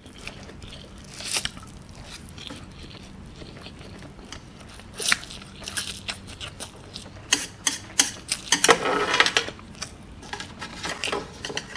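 A person slurping and chewing spicy instant noodles close to the microphone: wet mouth smacks and clicks, growing busiest and loudest about nine seconds in.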